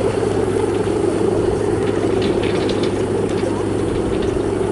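Balinese bebean kite's guangan, the bowed hummer strung across its frame, droning steadily in the wind.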